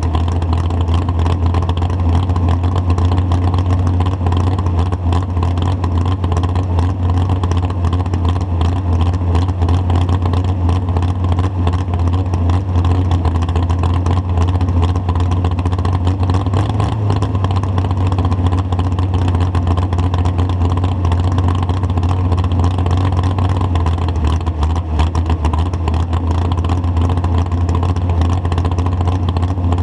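Pro stock pulling tractor's diesel engine idling steadily, close up behind its twin exhaust stacks, with a deep even note that holds unchanged.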